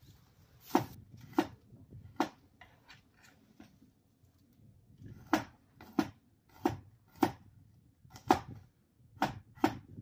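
Snow peas being trimmed by hand: about ten crisp snaps as the stem ends are broken off the pods, at irregular intervals with a pause in the middle.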